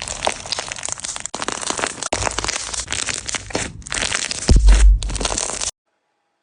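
Crunchy bead slime being squeezed and pressed by hand, giving dense, continuous crackling and popping from the plastic beads. A loud low thump comes about four and a half seconds in. The sound cuts off abruptly near the end.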